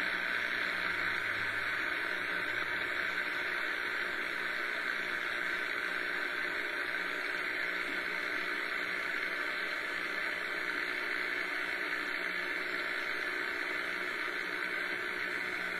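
Realistic DX-200 shortwave receiver hissing with steady static through its speaker as it is tuned toward the 40-meter band, with no station coming through. It is the heavy HF noise of poor band conditions, which the owner thinks may come from dry weather and static in the air.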